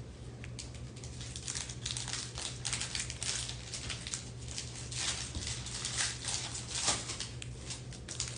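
Trading-card pack wrappers crinkling and cards being handled, an irregular run of crackles and rustles over a steady low hum.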